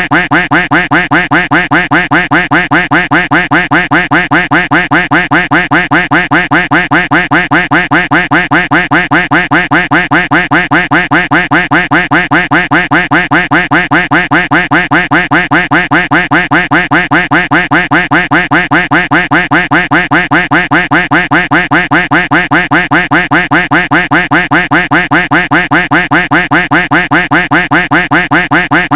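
Looped duck quack sound effect: the same quack repeated rapidly and evenly, without a break.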